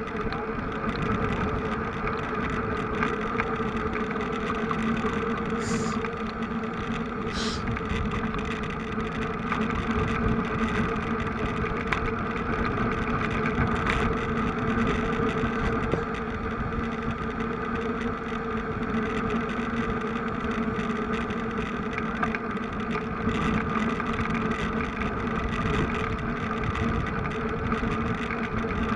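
A vehicle engine running at a steady speed, a constant unchanging drone. Two brief high hisses come about six and seven and a half seconds in.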